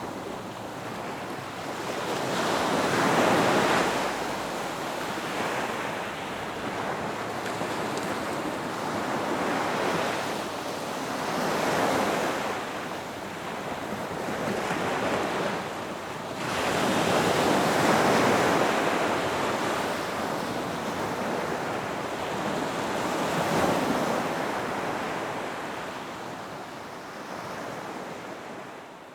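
Ocean waves surging and washing ashore, a series of swells that each build and fall away over a few seconds. The sound fades down near the end.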